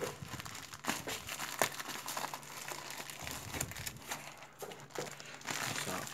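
Plastic padded mailer bag crinkling and crackling as it is handled and torn open by hand, with a string of irregular sharp crackles.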